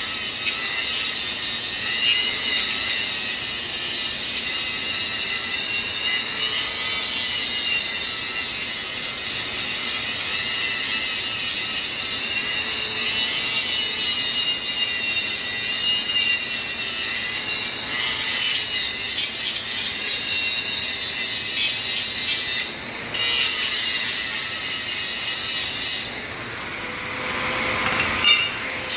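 A grinder grinding the welded steel edge of a log-splitter blade to sharpen it: a steady, harsh grinding hiss with a wavering whine. It lets off briefly twice near the end.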